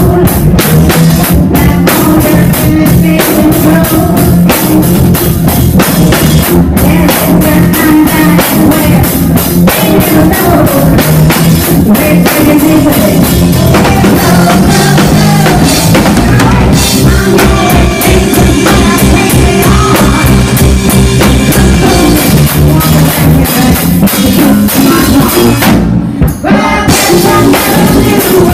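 Live rock band playing, with the drum kit loud and close, and guitar and bass underneath; the band breaks off for a moment near the end.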